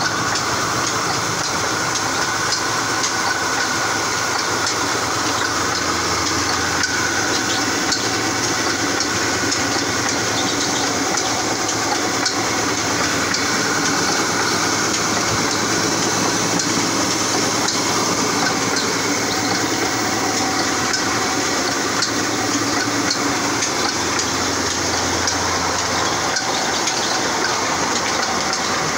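Belt-driven stone flour mill (atta chakki) running steadily while grinding grain fed from its hopper, a dense continuous hiss with fine rapid ticking and the flat drive belt slapping over its pulleys.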